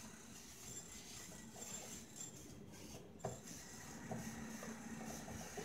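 Faint rubbing of tissue paper wiped over the nonstick plates of an open electric sandwich maker, with a few light clicks and knocks as the appliance is handled.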